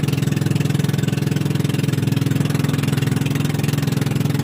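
Engine of a motorized outrigger boat (bangka) running steadily under way, an even droning throb that holds the same speed throughout.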